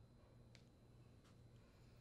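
Near silence: room tone, with two faint clicks about half a second and a second and a quarter in.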